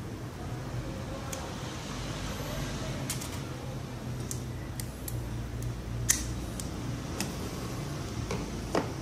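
Scattered light clicks and scrapes of a small flat tool prying a 40-pin DIP microcontroller chip out of its socket on a programmer board, the loudest click about six seconds in, over a steady low hum.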